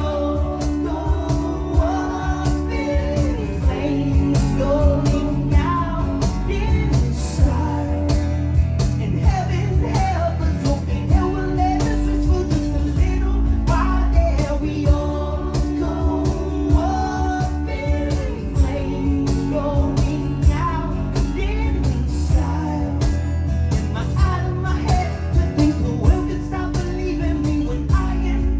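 Rock band playing a song live in an acoustic, unplugged arrangement: a lead vocal sung over guitar chords, with a steady beat.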